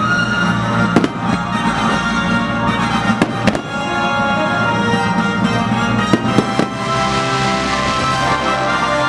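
Fireworks going off over a loud, steady orchestral show soundtrack: one sharp bang about a second in, two close together about three seconds in, and three in quick succession around six seconds in.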